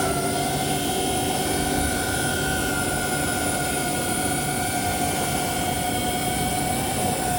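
DJI Avata 2 quadcopter drone's motors and propellers whining, held at a steady pitch just after spinning up.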